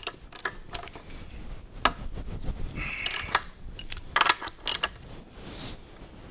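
Steel hand tools clinking and a socket ratchet clicking as a socket and ratchet are fitted onto a motorcycle's rear axle nut. The sound is a string of separate sharp clicks, with a short rattling run about three seconds in.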